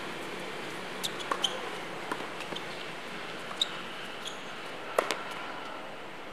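Tennis ball struck by rackets and bouncing on a hard court during a rally: a run of sharp pops a second or so apart, the loudest about five seconds in, over a steady hiss.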